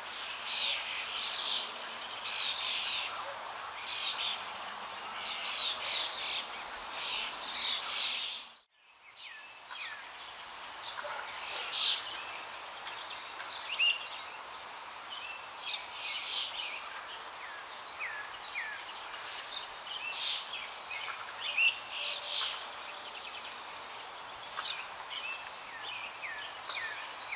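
Many small birds chirping and singing over a steady outdoor hiss. The sound drops out briefly about nine seconds in, then the chorus of chirps resumes.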